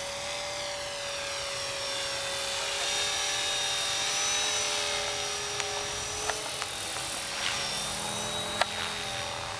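RC model helicopter flying overhead: a steady high whine from its motor and rotor, the pitch wavering slightly as it manoeuvres. A few light clicks, the sharpest near the end.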